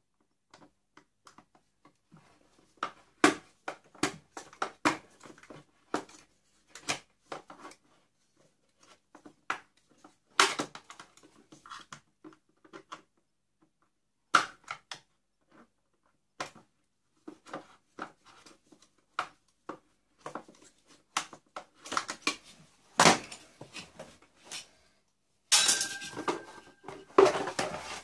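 Hard plastic motor housing of an industrial vacuum cleaner clicking, knocking and creaking irregularly as it is worked and prised apart by hand with a tool. Near the end comes a denser stretch of crackling and scraping as the housing comes apart.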